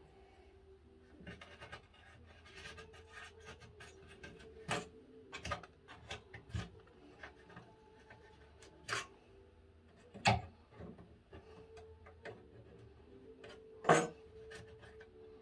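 Knife trimming the edges of 2 mm cork sound-deadening glued onto a wooden track bed: rasping, scraping cuts with a few sharp knocks, the loudest two about two-thirds through and near the end.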